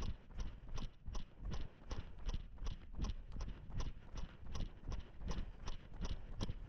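A runner's footfalls in a steady running rhythm, about three strikes a second.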